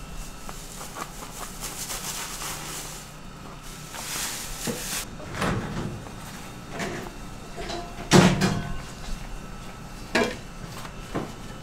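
Food-preparation sounds from a bakery kitchen: hissing for the first few seconds and again about four seconds in, then a few separate knocks and clatters, the loudest about eight seconds in.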